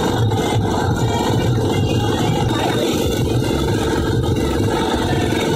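A diesel engine running steadily close by, with a low, fluttering hum.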